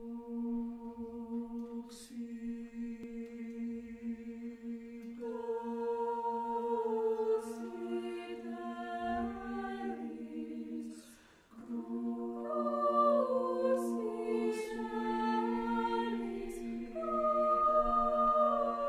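Choir singing unaccompanied: a low note is held steadily underneath while other voices enter about five seconds in and move above it. Near the middle the sound breaks off briefly, then all the voices come back in.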